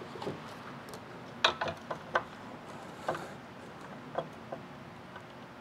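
A handful of short clicks and knocks as a circular saw's base plate and a speed square are set in place on a 2x8 board, lining up a cut. The loudest knock comes about one and a half seconds in.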